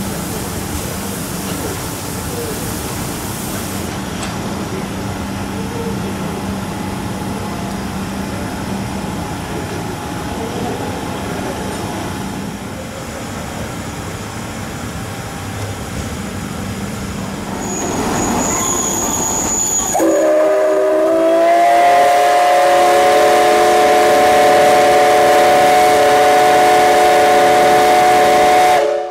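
C61 20 steam locomotive standing with a steady hiss and rumble. About twenty seconds in, its steam whistle sounds one long blast of several notes at once, held steady for about nine seconds.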